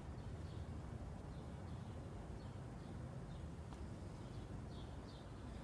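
Quiet low hum with faint, scattered bird chirps.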